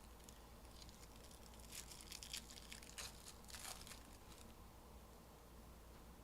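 Faint rustling and crinkling of trading-card packs and cards being handled, heaviest through the middle few seconds.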